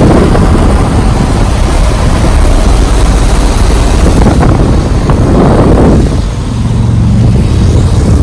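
Nordyne central air-conditioner condensing units running: a loud, steady whoosh of the condenser fans with a low hum underneath, the hum standing out more clearly in the last couple of seconds.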